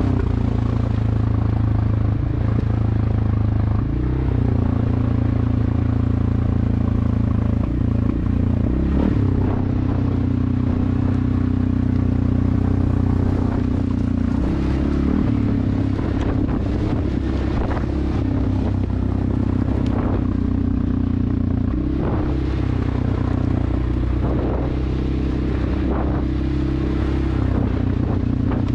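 CFMoto 600 ATV engine running under load on a dirt trail, its pitch shifting up and down several times as the throttle changes, with short knocks and rattles now and then.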